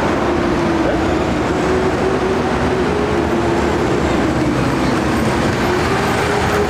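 Heavy military vehicles driving past in a parade column: steady engine and drivetrain noise with a wavering whine.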